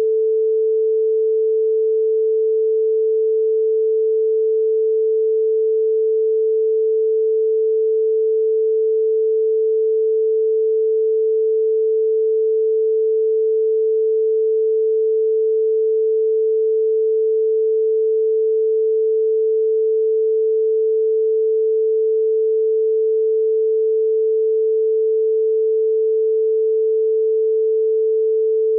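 Telephone beep tone: a single pure tone held at one steady pitch without a break.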